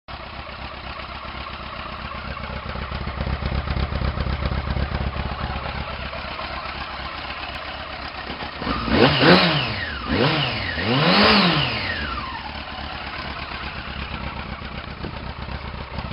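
2000 Yamaha R6's inline-four running at idle through a Dan Moto aftermarket exhaust, then blipped three times in quick succession about nine seconds in, each rev rising and falling back to idle.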